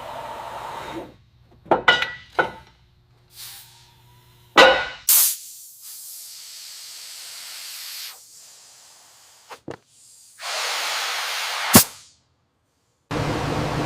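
A sequence of short hisses, like spraying, and sharp clicks, broken by brief gaps. Near the end a steady hiss with a low drone under it starts.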